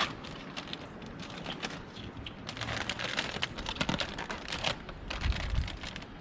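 Crackling, crinkling sound of the transfer tape being peeled back off a freshly applied vinyl decal: a run of small crackles, thickest in the middle.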